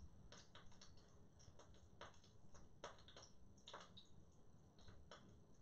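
Near silence: room tone with a scattering of faint, short clicks.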